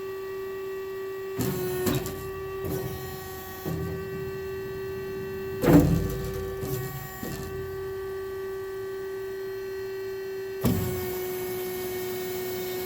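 Hydraulic system of a SteelX I-2718 mitering bandsaw humming steadily while its shuttle vise clamps and travels, with the blade stopped. Several clunks are heard, the loudest about six seconds in, and a noisier steady mechanical running starts about eleven seconds in.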